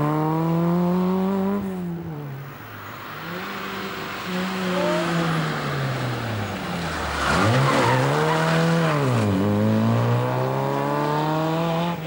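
Small rally cars' four-cylinder engines revving hard on a tight mountain stage. First a Fiat 127 Giannini pulls away with its revs climbing and falling through gear changes. Then an Autobianchi A112 Abarth 70 hp comes through a corner, its revs dropping sharply with a rush of noise about seven seconds in, before climbing again.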